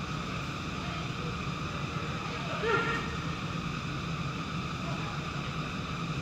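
Steady low hum and background noise in an indoor soccer arena, with a short shout from a player about two and a half seconds in.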